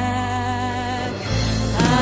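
Gospel song playing: singing with wavering held notes over steady backing chords and bass, growing louder near the end.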